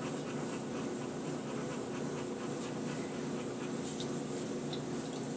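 Boxer mother dog panting steadily while her newborn puppies nurse, with two brief faint high squeaks about four seconds in.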